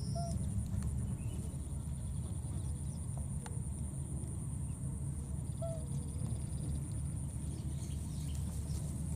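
Outdoor ambience in tall grass: a steady low rumble and a steady high-pitched drone, with a couple of faint short chirps.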